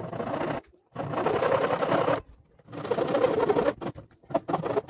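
Knife blade scraping along a thin wooden slat to shave it down, in three strokes of about a second each, then several short quick strokes near the end.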